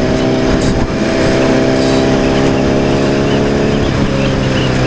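Honda CBR1000RR's inline-four engine running steadily at cruising speed, heard on board with wind rush. Its pitch dips slightly about four seconds in.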